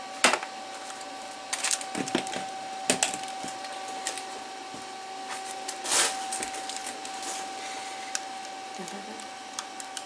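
Scattered clicks and knocks of things being handled on a workbench, the loudest just after the start and about six seconds in, over a steady high-pitched electrical whine.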